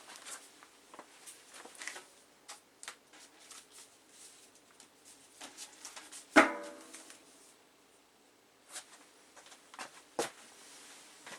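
Handling noise: paper and plastic rustling with scattered small clicks and knocks as software boxes and manuals are moved about, with one brief louder pitched squeak or thump about six seconds in.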